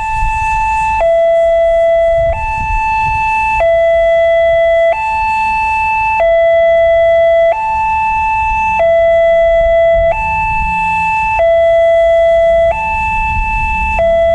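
Indonesian railway level-crossing warning siren sounding its two-tone alarm, switching back and forth between a higher and a lower tone, each held a little over a second: the signal that the barriers are down and a train is approaching.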